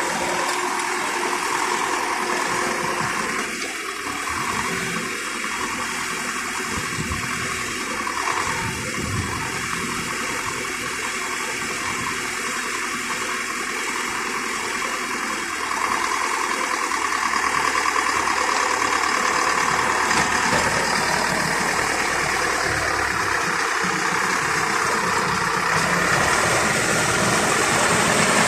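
DT-75 crawler tractor running with its diesel engine at a steady pace, getting louder about halfway through.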